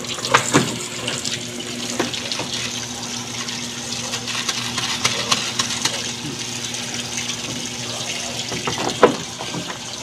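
Water rushing steadily into a Samsung automatic washing machine as it fills, with a faint steady hum and a few light knocks. This is a fill test to see whether the water now cuts off at its level, the machine's fault having been water that kept filling without stopping.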